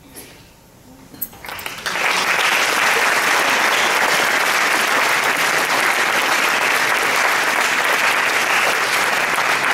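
Audience applauding: a few scattered claps about a second in, then full, steady applause from about two seconds on.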